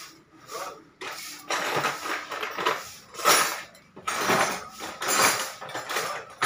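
Metal tools and parts clinking and rattling as they are handled on a workbench, in several irregular bursts.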